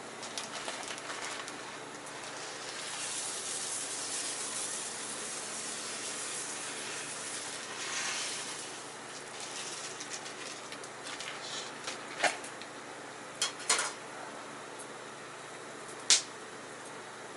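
Food hissing in an iron frying pan over a campfire. The steady hiss swells a few seconds in and eases again, and a few sharp clicks or knocks come near the end.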